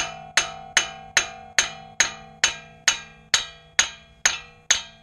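Steady hammer blows, about two and a half a second, on the CV axle shaft end in a 2005 Honda Odyssey's front wheel hub, driving the shaft inward to free it from the hub. Each blow leaves a ringing tone.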